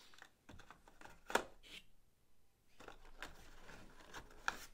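Faint crinkling and small clicks of packaging being handled, with one sharper click about a second and a half in.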